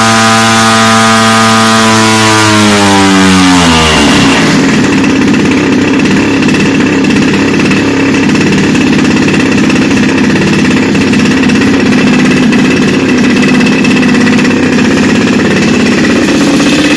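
Large propeller engine on a thrust stand, run at high speed and then throttled back: its pitch falls over about two seconds, and from about four seconds in it settles into a steady, rougher idle.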